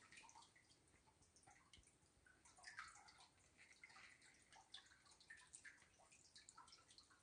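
Faint water trickling and dripping in a qanat's underground channel, a scatter of small irregular drips and splashes.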